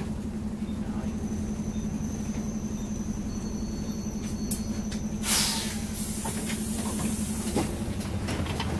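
Optare Solo bus engine running steadily, heard from on board, with a thin high-pitched squeal for a few seconds. About five seconds in, a short loud hiss of air.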